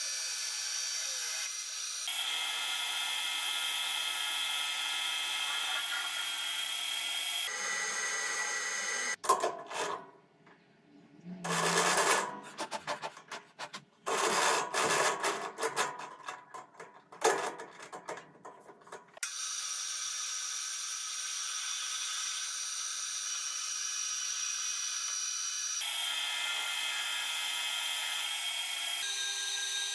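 Metal lathe turning a metal workpiece: a steady spindle and motor whine with the hiss of the cutting tool. In the middle it stops for about ten seconds of sharp clicks and clatter as a workpiece is fitted and tightened in the three-jaw chuck, then the cutting resumes.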